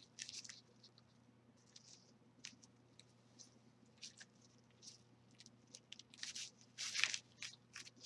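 Faint rustling and scraping of glittered cardstock bird cutouts and yarn cords handled while a square knot is tied, busier and a little louder from about six seconds in, over a low steady hum.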